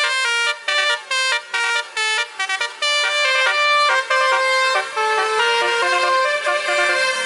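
Telolet (basuri) multi-tone bus horn playing a tune: a run of quick short notes, then longer held notes from about three seconds in.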